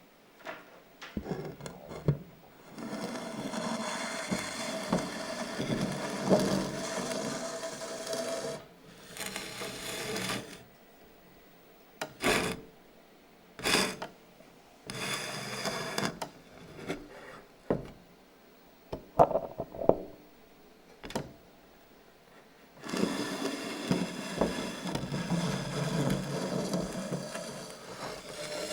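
Irregular scraping and rubbing noises in bursts a few seconds long, with pauses and a few sharp knocks between them, made by hand as part of a sound-art performance.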